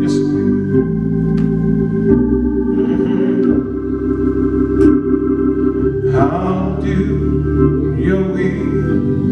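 Church organ playing held chords that change every second or two, with a man's voice singing along in stretches, mostly in the second half.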